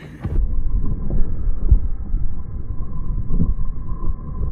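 Heavy, uneven wind rumble buffeting a phone's microphone while riding a towed banana boat at speed over waves. About half a second in the sound turns muffled, with no treble.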